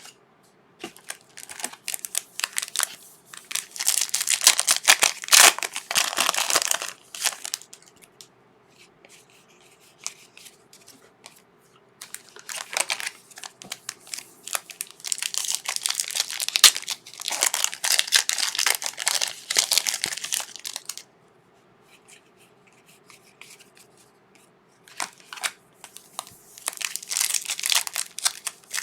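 Trading card pack wrapper being torn open and crinkled by hand, in three bouts of crackling with short quiet pauses between them.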